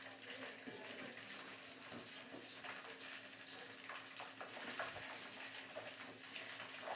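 Faint sizzling of chicken pieces deep-frying in hot oil in a steel wok, with scattered light clinks and scrapes of a metal slotted spoon against the wok as the pieces are lifted out. A steady low hum runs underneath.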